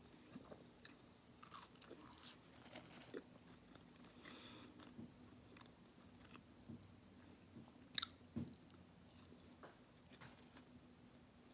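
A person biting and chewing food close to the microphone, with quiet scattered crunches and mouth clicks; the sharpest crunch comes about eight seconds in.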